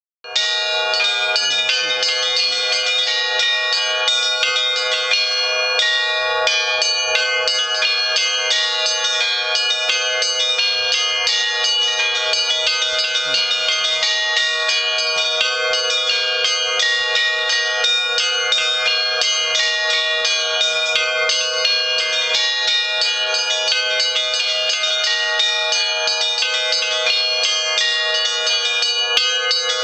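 Russian Orthodox church bells rung in a continuous peal: many bells of different pitches struck over and over by their clappers, their tones overlapping and ringing on. All the bells sit fairly high in pitch, with no deep bass bell.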